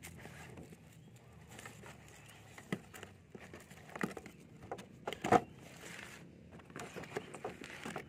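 A cardboard toy box with a plastic window being handled and opened: scattered taps, rustles and clicks as it is turned over and its end flap pried open, with the sharpest knock about five seconds in.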